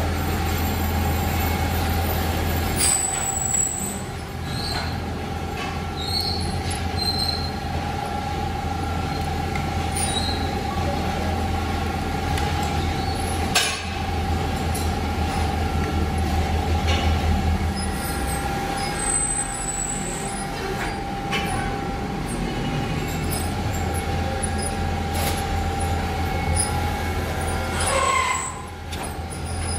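Workshop machinery running steadily with a low hum and a high whine, with scattered light metallic clinks and taps as engine valves are handled.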